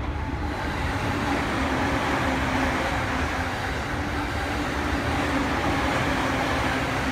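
Steady rumble and rolling noise of a train on the rails, with a faint held tone. It grows louder in the first half-second, then stays even.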